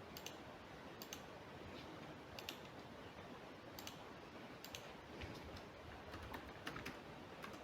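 Faint, irregular clicks of a computer mouse and keyboard, a dozen or so scattered sharp ticks over a low background hiss.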